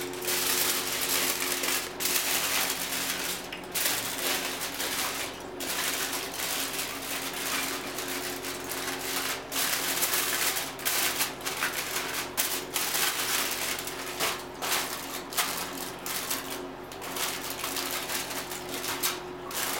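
Aluminum foil crinkling and crackling as it is crumpled and pressed by hand around a tin can, an irregular rustle with many small crackles and brief pauses.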